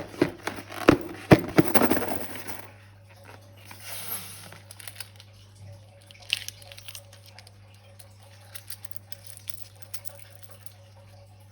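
Balloon and slime handling: a quick run of sharp rubbery squeaks and clicks in the first two seconds or so, then faint soft crinkling and squishing.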